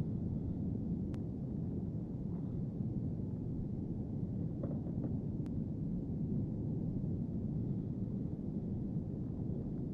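Mount Etna's lava fountain erupting: a steady, deep rumble from the crater, with a few faint ticks on top.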